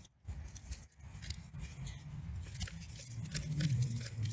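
Loppers crunching into the dense, fibrous root ball of a cat palm: a run of small crackles and snaps as the blades work against the thick roots and meet resistance. A low rumble builds near the end.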